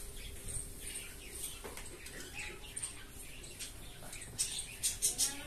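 Small birds chirping in short, scattered calls, with a quick run of sharp clicks near the end.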